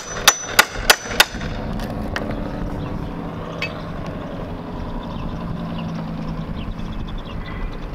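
A steel claw hammer striking a cat's paw nail puller four times in quick succession, about three blows a second, with a ringing metal-on-metal clank, driving the claw in between two nailed wooden studs to wedge them apart. After that only a steady low hum remains.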